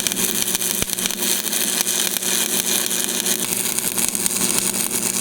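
Stick welding arc burning a 7018 rod from a Lincoln tombstone welder: a steady crackling sizzle with fine pops as the rod melts into the anvil edge during a root pass.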